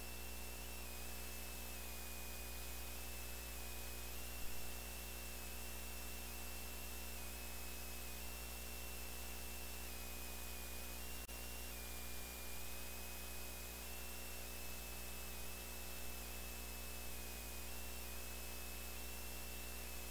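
Steady electrical mains hum and hiss from the sound system, with a faint high whine over it and a soft bump about four seconds in.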